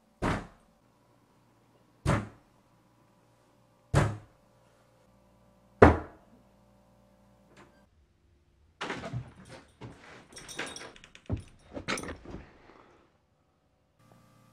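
Heavy banging on a door: four loud knocks about two seconds apart, then a rapid, irregular flurry of pounding and rattling.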